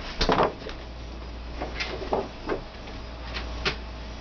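Handling sounds on a craft table: a short scrape and rustle near the start as a plastic cutting mat is moved aside, then several light clicks and taps as small tools are put down.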